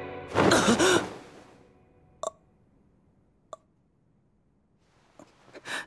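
A startled voiced gasp and sigh from an anime character, then two short faint clicks about a second apart, and another quick gasp near the end.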